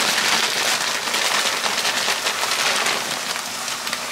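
Heavily salted water at a rolling boil in a large stainless steel pot on a gas burner, bubbling with a dense crackle, easing slightly toward the end.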